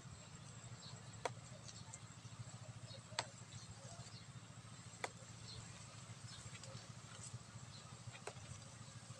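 Tender cassava leaf stems snapped off by hand: four sharp snaps, roughly two seconds apart, over a low steady hum and faint high chirps.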